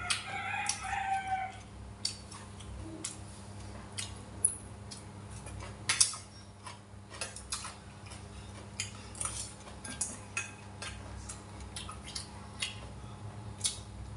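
A long crowing call in the background during the first second and a half. Then a spoon and chopsticks click and scrape against stainless-steel and ceramic bowls as food is scooped and eaten. A steady low hum runs underneath.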